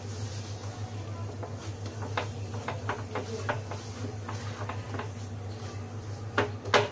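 Wooden spatula stirring thick cashew paste in a steel pan, with soft scrapes and a run of light ticks against the metal. Two louder knocks come near the end. The paste is being cooked on low flame until it starts to leave the sides of the pan.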